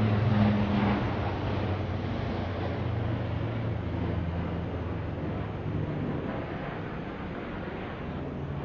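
Aircraft engine drone, a steady rumble with low humming tones that slowly fades away.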